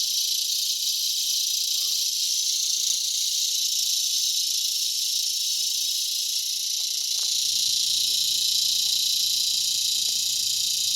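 Cicadas singing in a steady, high-pitched, hissing buzz that holds unbroken throughout.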